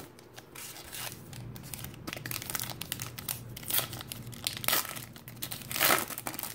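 Foil trading-card pack wrapper crinkling as it is torn open and handled, a run of short crackles with a louder burst of crinkling near the end.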